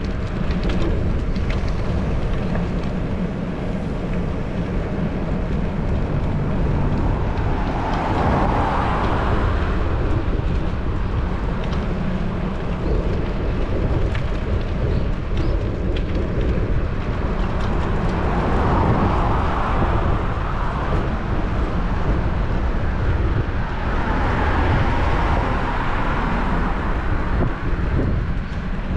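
Steady wind rumble on a bicycle-mounted action camera's microphone while riding along a road. Three times a passing car's tyre noise swells and fades.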